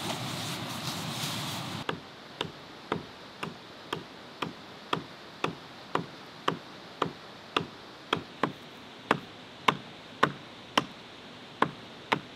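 Hatchet chopping into a log: sharp, evenly paced strikes about two a second, starting after a brief rustle of fabric in the first couple of seconds.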